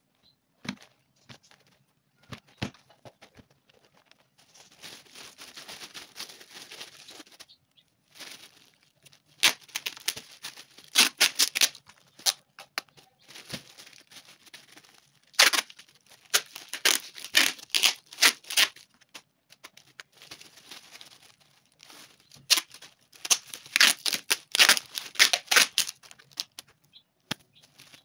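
Clear plastic bag rustling and crinkling while it is wrapped, with packing tape pulled off its roll in several quick runs of rapid ripping clicks.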